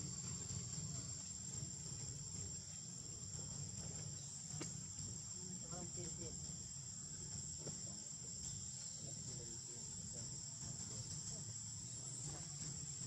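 Steady high-pitched drone of insects, unbroken throughout, over a low steady hum.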